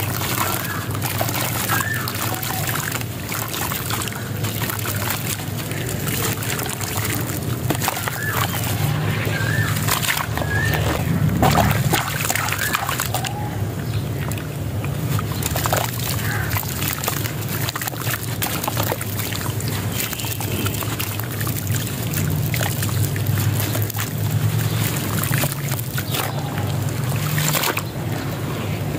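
Clumps of gritty wet sand crumbling and dropping into a tub of water as hands break and squeeze them, with water sloshing and splashing.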